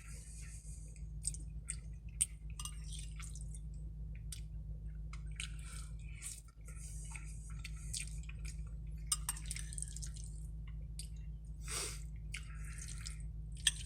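Close-miked wet chewing of a mouthful of spaghetti: many short smacking and squishing mouth clicks, some in quick clusters.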